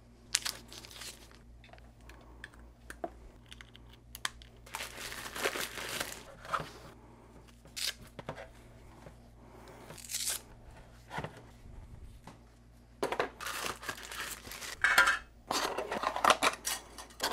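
Packaging paper rustling, crinkling and tearing as small parts are unwrapped, in irregular bursts mixed with light handling clatter. A faint steady low hum runs underneath.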